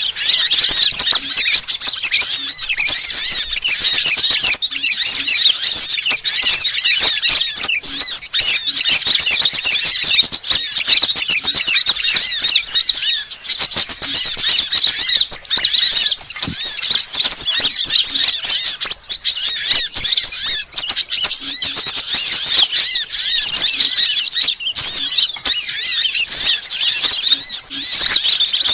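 A bird-lure recording of small songbirds such as sunbirds and bulbuls: loud, dense, high-pitched chirping and twittering, with many short calls overlapping and no pause.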